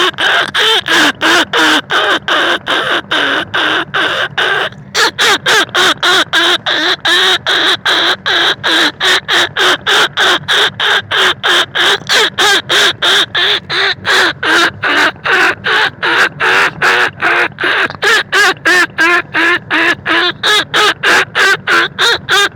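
Lure call for rice-field and bandicoot rats: a rapid, even run of short, wavering animal calls repeating about two to three times a second, with a brief break about five seconds in.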